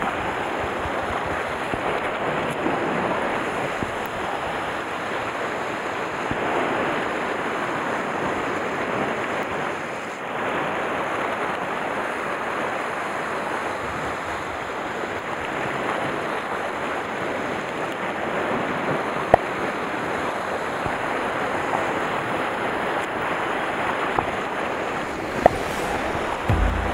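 Sea waves washing against a rocky shore: a steady rush of surf, with some wind on the microphone. Two short sharp clicks sound late on.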